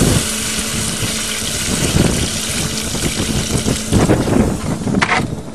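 Water pouring and splashing steadily onto a freshly welded front-wheel-drive axle's inner CV joint, quenching the hot weld. A faint steady low hum runs underneath.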